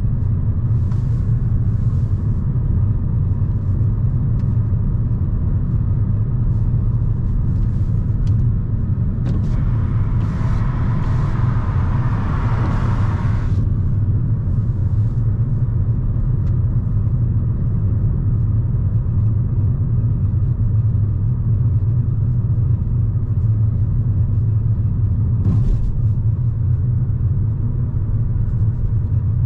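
Steady low rumble of a 2008 Volkswagen Passat 1.8 TSI running. A hiss swells up about ten seconds in and cuts off a few seconds later. A few faint clicks are scattered through.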